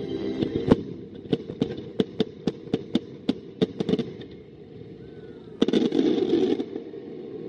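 Aerial fireworks going off in a rapid run of sharp bangs, about three a second, for roughly four seconds. Then a short lull and a louder, dense burst of noise about a second long.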